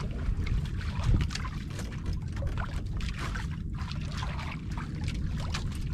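Seawater lapping and splashing against the hull of a small outrigger fishing boat, coming in irregular rushing swells over a steady low rumble.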